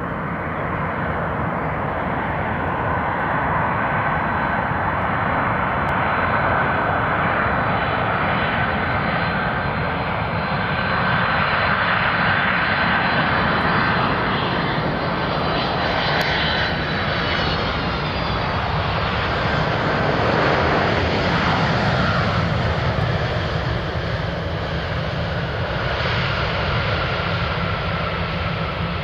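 Boeing 767-300ER's twin turbofan engines whining on final approach and landing. The whine drops in pitch as the jet passes about halfway through, and the engine noise swells again about two-thirds through as it rolls out along the runway.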